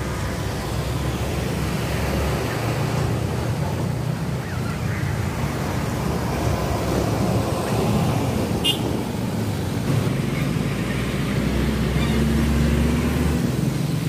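Road traffic: heavy trucks and motorcycles passing close by, with a steady low engine rumble throughout. A brief high chirp comes a little past the middle.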